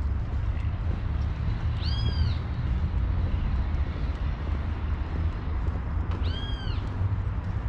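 An animal's cry, heard twice about four and a half seconds apart. Each cry is short and rises then falls in pitch, over a steady low rumble.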